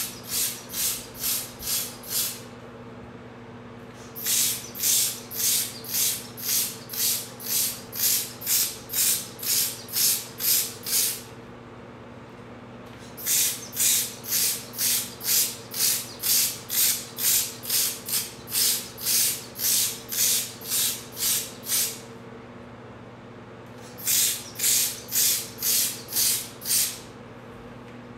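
Hand-pump powder sprayer puffing edible green colour dust onto a cake: a sharp hiss with each pump stroke, about two a second, in runs broken by pauses of about two seconds. A steady low hum runs underneath.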